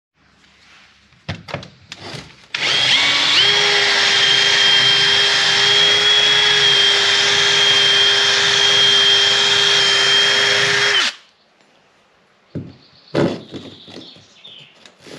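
Cordless drill drilling into a boat's hull at a pilot hole for a through-hull fitting. The motor starts about two and a half seconds in, comes up to a steady, even speed, runs for about eight seconds and stops sharply. A few light knocks follow near the end.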